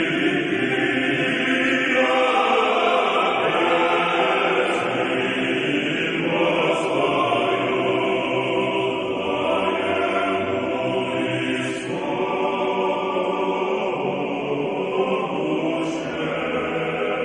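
Choir singing Orthodox liturgical chant in sustained, held chords that shift every few seconds.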